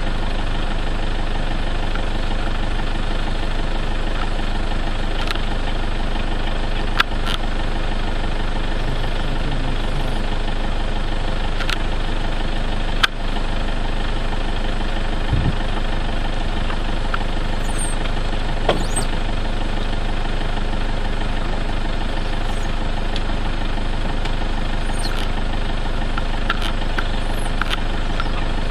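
A vehicle engine idling steadily, with a few sharp clicks over it, the loudest about halfway through.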